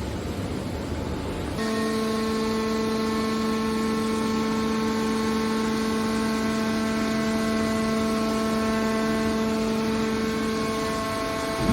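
Hydraulic scrap metal baler running: a low rumble, then about a second and a half in a steady machine whine sets in and holds.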